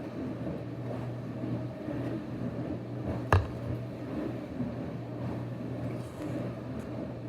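A steady low hum, with one sharp click a little over three seconds in.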